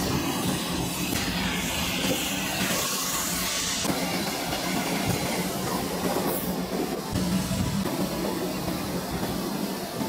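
Steady machine noise from the air-conditioner production line under background music, with a hiss from about one to four seconds in.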